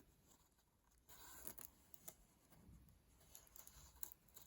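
Faint scratchy peeling and small ticks of double-sided adhesive tape giving way as an iMac display panel is pulled free of its frame.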